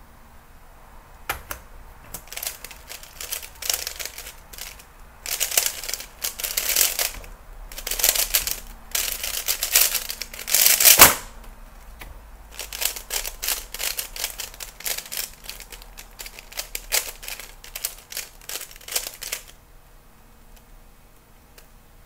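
A 3x3 Rubik's cube being turned fast in the hands: quick runs of plastic clicking and clacking as the layers snap round, in a speedsolve. A single sharp knock just before the middle ends the first run, which fits the timer being stopped. After a short pause a second run of turning follows, in line with the cube being scrambled again, and the turning stops a couple of seconds before the end.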